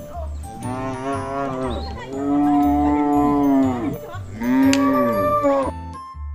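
A cow mooing three times, long drawn-out calls, the middle one the longest and loudest, over light background music with a steady bass beat.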